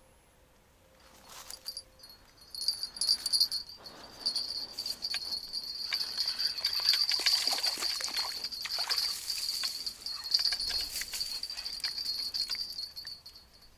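Small bell on a fishing rod tip jingling steadily while a hooked crucian carp is reeled in and landed, with rustling and sharp handling clicks through it. It starts about two seconds in and stops shortly before the end.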